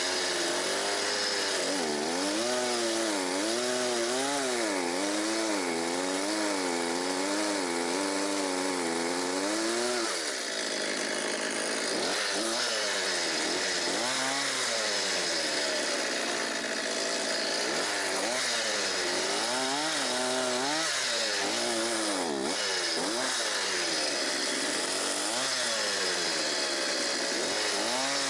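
Petrol two-stroke chainsaw cutting a felled birch, its engine speed rising and falling over and over as the chain bites and frees, with a brief drop about ten seconds in.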